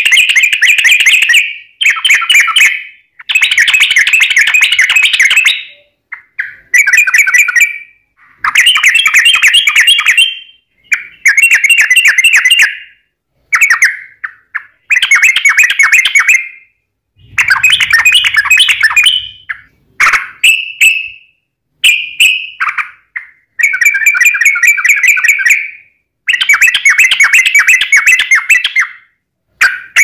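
Yellow-vented bulbul (trucuk) singing loudly: phrase after phrase of fast, rolling runs of notes, each lasting one to three seconds with short pauses between, about a dozen in all.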